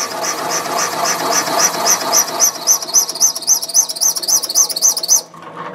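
Valve-seat cutter turning in the intake chamber of a big-block Chevy cylinder head on a Sunnen VGS-20 seat-and-guide machine, cleaning up around the seat. A rhythmic high chirping squeal repeats about four times a second over a steady grinding of the cut, and both stop suddenly near the end.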